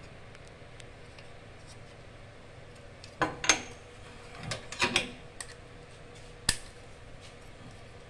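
Light metallic clinks and clicks from an aluminium dental stock tray and a pair of scissors being handled. There are two clusters about a second apart, then one sharp single click.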